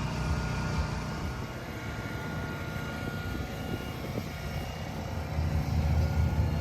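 A car engine running at idle with a low, even note that grows louder near the end.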